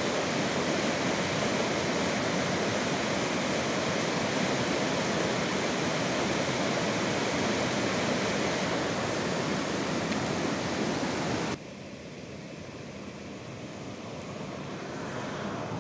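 Steady rush of running water. It cuts off suddenly about 11 seconds in, leaving a quieter hiss that slowly grows louder.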